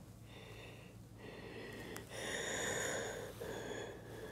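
Faint breathing close to the microphone, a few slow breaths starting about a second in.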